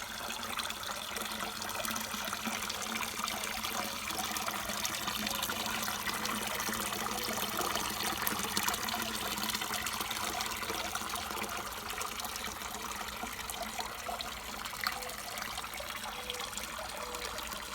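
Water trickling steadily into a garden pond.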